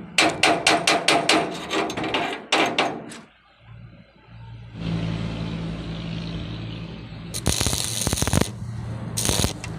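A steel chipping hammer strikes a fresh weld about a dozen times in quick succession, knocking off slag. From about five seconds in, a stick-welding arc crackles and hisses over a steady low hum, growing louder and harsher twice near the end.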